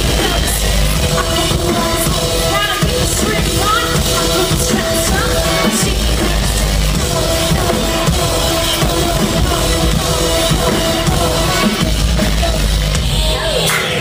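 A band playing loud amplified music live: a pounding drum kit and heavy bass under sustained chords, with little singing. Deep bass swells come in three times, at the start, about six seconds in and about twelve seconds in.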